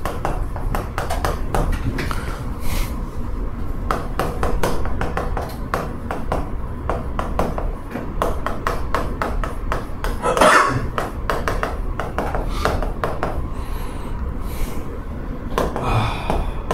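Chalk writing on a chalkboard: quick, irregular taps and short scratches as the letters are written, with one brief louder scrape or rustle about ten seconds in.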